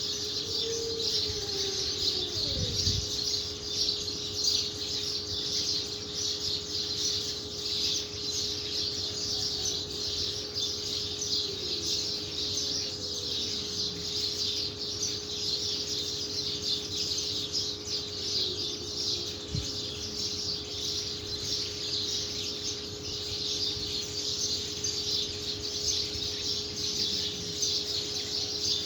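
Continuous, dense high chirping of birds, over a steady hum, with a few faint sounds that fall in pitch.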